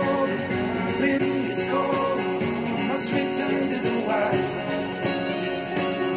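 A song with guitar, drums and singing, played back through a pair of 5-inch studio monitors and picked up by microphones in front of them. The playback switches partway through from Tannoy Gold 5 to Yamaha HS5 monitors.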